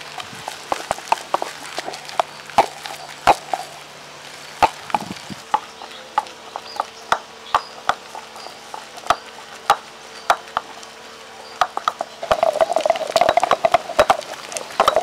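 Heavy stone pestle pounding and grinding prawns, onion and green chillies into a thick wet batter in a stone mortar: sharp, irregular stone-on-stone knocks a few times a second over the mashing of the paste. About twelve seconds in, the grinding becomes faster and louder.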